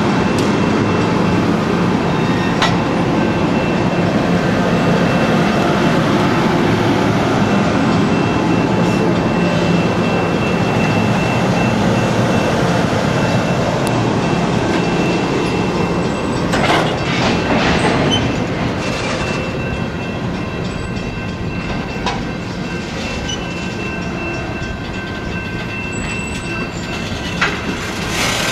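Ringling Bros. and Barnum & Bailey circus train cars rolling past: a steady rumble of steel wheels on the rails, with a few sharp knocks in the second half.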